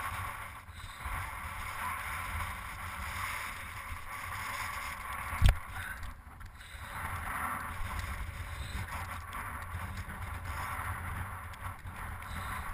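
Mountain bike rolling down a rocky gravel trail: a steady rumble and hiss of tyres on gravel and rock mixed with wind on the bike-mounted camera's microphone. One sharp knock comes about five and a half seconds in.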